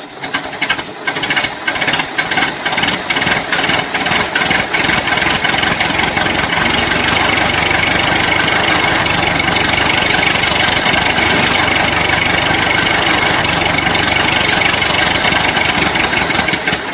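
Old car engine being cranked and sputtering with irregular firing, then catching and running more steadily from about five seconds in.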